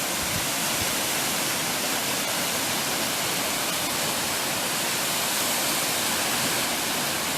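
A waterfall about 71 feet tall, pouring steadily into its plunge pool: a constant, even rush of falling water.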